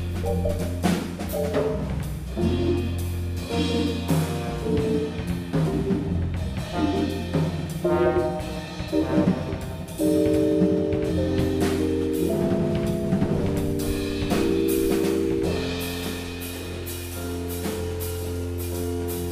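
Live jazz quartet playing: trombone over drum kit with busy cymbals, electric bass and keyboard piano. About halfway through it gets louder, with long held notes.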